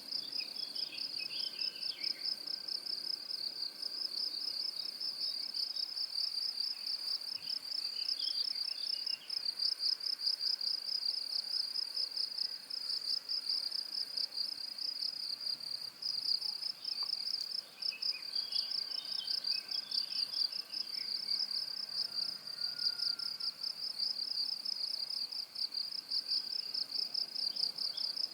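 Crickets trilling in a steady, rapidly pulsing high-pitched chorus. A few fainter, scattered chirps come and go beneath it.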